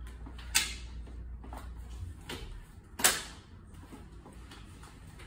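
Folding frame of a Nova Phoenix upright walker clacking as it is folded. There are two sharp clacks about two and a half seconds apart, the second the loudest, with lighter knocks between.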